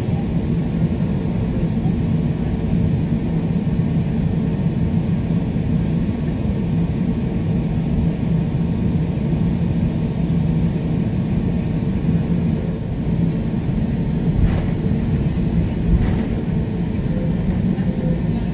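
Airbus A320ceo cabin noise while taxiing: a steady rumble from the engines at idle, with a constant hum running through it. Two short faint knocks come near the end, about a second and a half apart.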